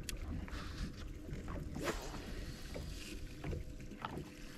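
Outdoor ambience on a bass boat: low wind rumble on the microphone and water against the hull, with a faint steady hum. A short sharp sound about two seconds in.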